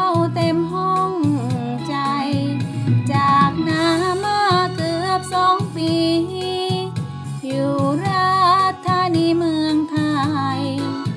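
Background music from a Lao-language song: a wavering melody line over a steady accompaniment.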